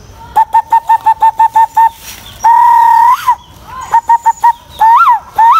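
A loud, bird-like whistled call near the microphone: a quick run of about nine short even toots, then one long held note, then a few short notes and two notes that rise and fall in pitch.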